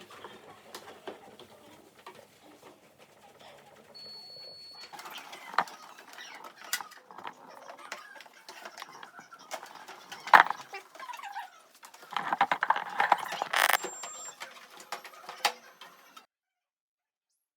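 Scattered clicks, knocks and rubbing as the inside of a refrigerator is wiped down with a wet towel, with a louder stretch of scrubbing about twelve seconds in. The sound cuts off to silence near the end.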